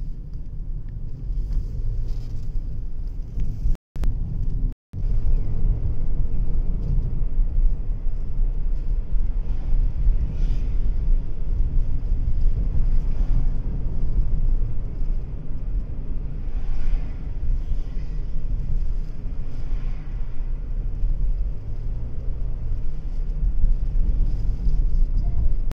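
Steady low rumble of a car driving, heard from inside the cabin: engine and tyre noise on the road. The sound drops out to silence twice, briefly, about four and five seconds in.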